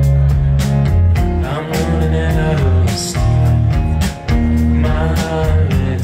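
Live indie rock band playing, with electric guitars, electric bass and keyboard over a steady drum beat.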